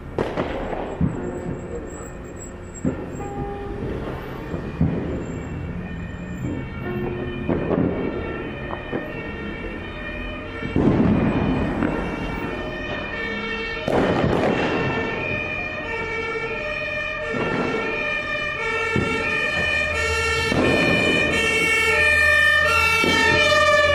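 New Year's Eve firecrackers and fireworks banging sharply at scattered moments, while an emergency vehicle's siren, alternating between two pitches, comes in about a third of the way through and grows louder toward the end.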